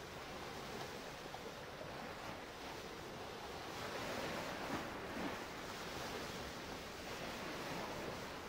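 Water washing and lapping, with wind on the microphone; the wash swells a little about four to five seconds in.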